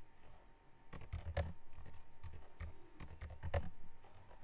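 Computer keyboard being typed on: irregular key clicks, a dozen or so in quick uneven runs.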